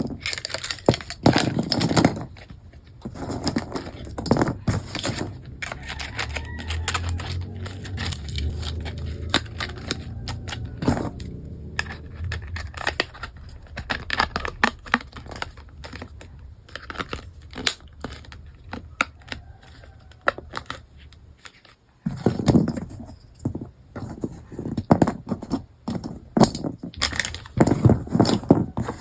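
Plastic packaging of toy kitchen pieces crinkling and tearing as it is opened, with scattered clicks and knocks of small plastic pieces being handled.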